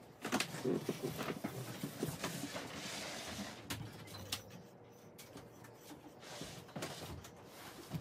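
Scattered clicks and knocks of hand work on an electric scooter's rear wheel, a hand tool at the axle and brake disc and a hand turning the tyre, with a brief soft rushing about three seconds in.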